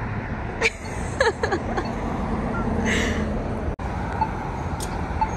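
Street traffic with cars passing a crosswalk. In the second half a pedestrian push-button signal gives a short beep about once a second.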